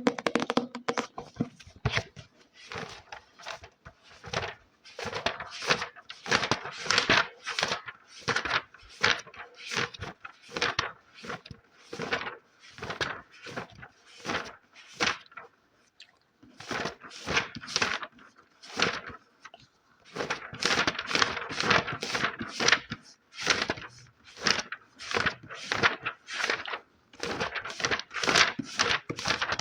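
Fast, irregular scratching strokes on an object, a few a second, with two short pauses around the middle.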